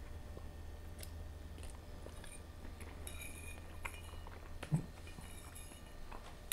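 Metal fork clinking and scraping against a ceramic plate while twirling fettuccine, in scattered small clicks and short scrapes, with one duller knock about three-quarters of the way through.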